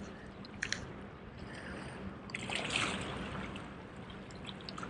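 Seawater lapping and washing against the rocks of a jetty, swelling briefly about two and a half seconds in, with a couple of faint clicks under a second in.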